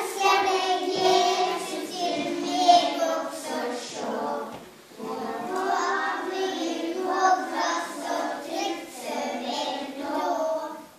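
Children's choir singing in two phrases, with a short break for breath about halfway through; the singing stops right at the end.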